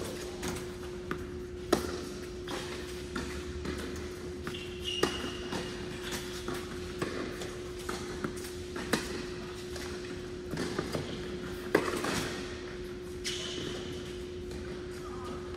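Tennis ball struck back and forth by rackets in a rally on an indoor hard court: sharp pops every one to three seconds, with a couple of short high squeaks and a steady hum underneath.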